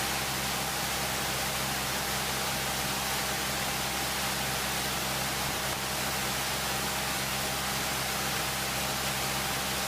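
Steady hiss of static with a faint low hum, on an open radio or intercom audio feed with no one talking.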